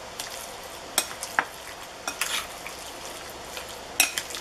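Metal spoon stirring a wet mince of raw chicken, garlic and seasoning in a glass bowl: a steady wet crackle, with sharp clinks of the spoon against the bowl about four times.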